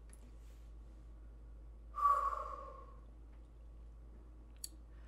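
A single voiced sigh, about two seconds in and lasting about a second, falling slightly in pitch; a faint click near the end.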